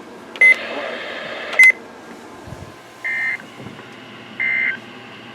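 NOAA Weather Radio SAME end-of-message data bursts: short, buzzy digital squawks, each about a third of a second long, coming about 1.3 seconds apart, marking the end of the alert. Shortly before them comes a louder buzzy burst about a second long, starting and ending with a click.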